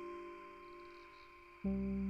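Peaceful instrumental background music: held notes fade away, then a new, louder chord sounds about one and a half seconds in.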